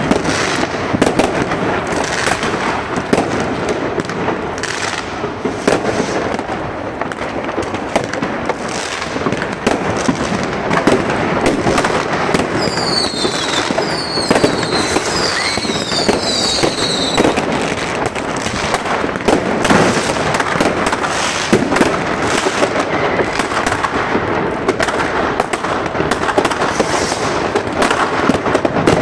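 Many fireworks and firecrackers going off at once, a dense, continuous crackle of bangs and pops. A cluster of short, shrill whistles joins in about halfway through.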